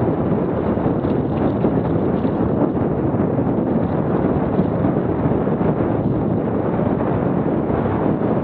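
Wind buffeting a Garmin VIRB action camera's microphone while riding a mountain bike along a rough dirt singletrack: a steady, loud rushing noise with the ride's rumble and rattle mixed in.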